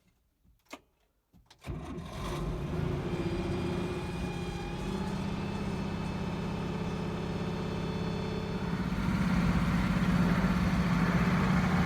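A few faint clicks, then a tractor's diesel engine starts about two seconds in and runs steadily, getting somewhat louder near the end.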